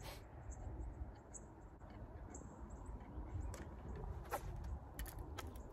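Wind rumbling on the microphone, with several faint sharp clicks in the second half.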